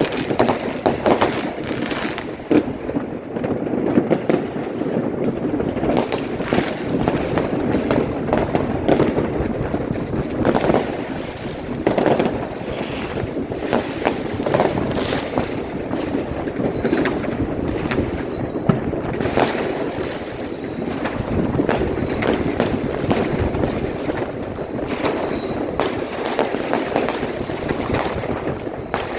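Dense fireworks barrage: continuous bangs and crackling firecrackers, with a thin high wavering whistle running through the second half.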